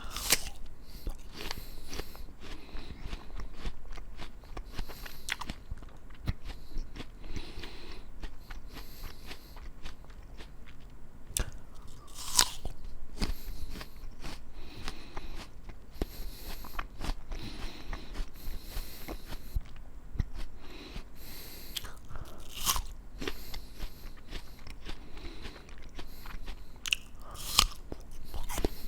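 A person eating a raw apple close to the microphone: crisp crunching bites, the sharpest about twelve seconds in and twice near the end, with quieter wet chewing between them.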